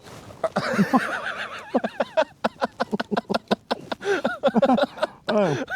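Hearty laughter, a long run of rapid, pitched bursts that keeps going.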